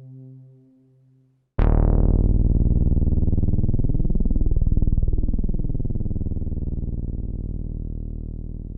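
Korg EX-800 synthesizer bass sounds: a pulsing low note fades out, then about a second and a half in a new deep bass note starts suddenly and holds, slowly fading with a sweeping, phasing shimmer in its overtones.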